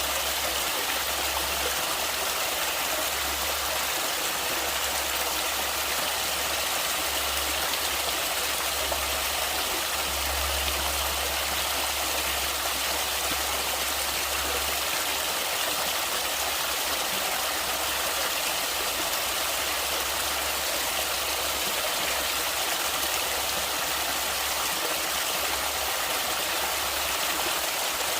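Flowing stream water, a steady rushing hiss, with a low rumble underneath that comes and goes and is strongest in the first half.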